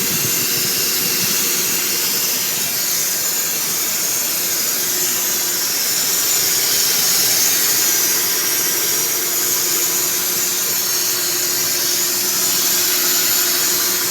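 1996 Ford F-150's 300 cubic inch (4.9-litre) inline-six engine running, heard close up under the open hood, with a steady whistling, hissing air noise over it. The cause of the whistle is unknown to the owner.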